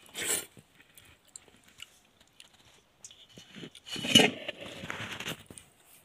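A hand stirring and squeezing water-soaked rice (pakhala) in a steel bowl while eating, with soft handling noises; a brief burst just after the start, and the loudest stretch from about four seconds in lasting over a second.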